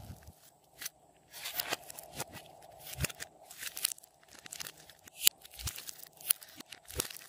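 Soft modelling clay being pulled apart and squeezed by hand, giving short crackly tearing and squishing sounds, with scattered sharp clicks; the loudest click comes about five seconds in.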